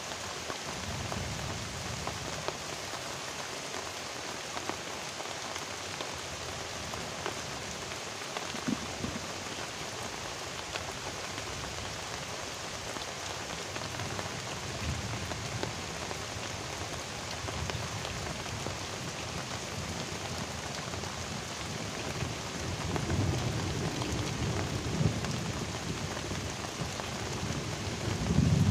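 Heavy tropical rain falling steadily, a dense even hiss. Low rumbles of thunder swell in the last few seconds, loudest near the end.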